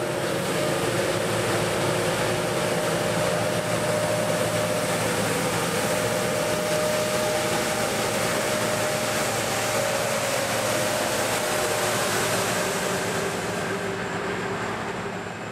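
Road-works machinery running steadily: a Tecnosystem TS 6000 sweeper working behind a road milling machine. It is a dense, steady rush of noise with a few steady hum tones beneath, easing off a little near the end.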